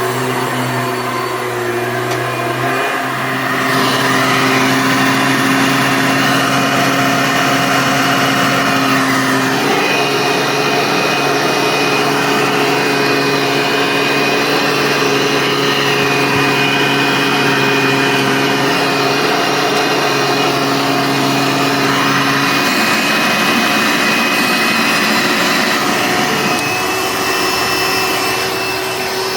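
Hoover Elite upright vacuum cleaner running: a steady motor hum with a fan whine. It gets louder about four seconds in, and its tone shifts again around ten seconds and twenty-three seconds in.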